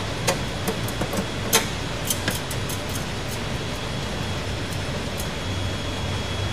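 Scattered light metallic clicks and taps of a nut driver working nuts off the side of a recloser control's metal housing, mostly in the first three seconds or so, over a steady low hum.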